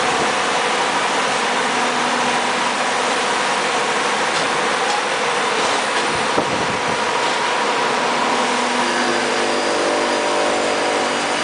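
Electric motor on a workshop special-purpose machine running with a steady mechanical hum and hiss. There is a single click about six seconds in, and a few more steady low tones join about nine seconds in.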